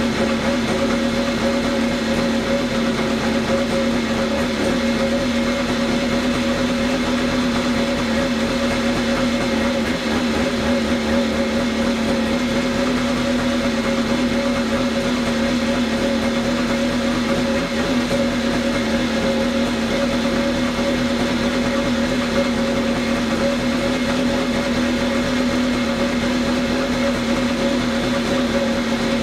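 1987 Kawasaki X2 jet ski's two-stroke engine running at a steady speed on a stand out of the water, fed cooling water from a garden hose. Its pitch holds steady throughout.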